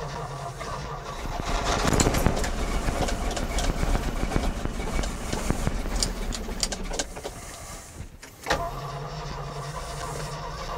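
AMC 360 V8 of a 1981 Jeep J20 being cranked on the starter and catching unevenly as it tries to start after sitting. It gets louder and rougher about two seconds in, drops away briefly about eight seconds in, then comes back suddenly.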